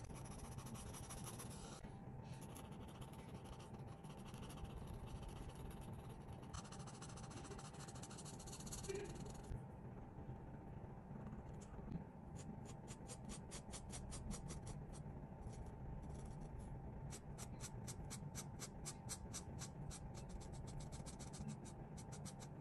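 Marker tip rubbing on sketchbook paper while colouring: a scratchy hiss of longer strokes in the first half, then quick back-and-forth strokes, several a second, from about halfway in.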